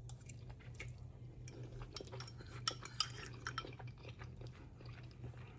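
A metal utensil clinking and scraping in a dish of creamy chicken spaghetti casserole as it is stirred and scooped, in many small irregular taps, over a low steady hum.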